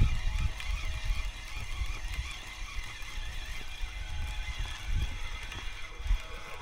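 Spinning fishing reel being cranked, its gears whirring in a wavering, uneven pitch as line is wound in on a hooked fish, over a low rumble.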